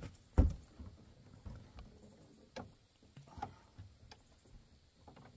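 Thumps and knocks on an aluminium boat as a large flathead catfish is handled and lifted over the side: one heavy thump about half a second in, then lighter scattered knocks.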